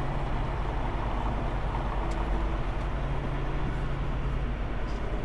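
Diesel engine of a semi truck idling: a steady low drone with an even hum underneath.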